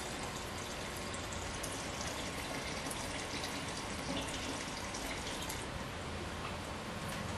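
Liquid trickling and dripping, with scattered small ticks, over a steady background hiss.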